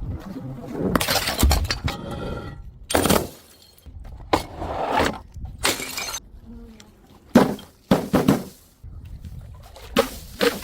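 Glass bottles being thrown and shattering: several separate crashes of breaking glass, each followed by a short tinkle of shards.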